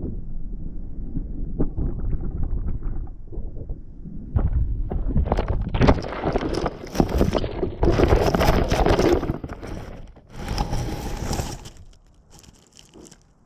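Wind rumbling on the microphone, then from about four seconds in loud scraping, crackling and rustling as the weather-balloon payload bumps against the ground after landing, dying away about twelve seconds in.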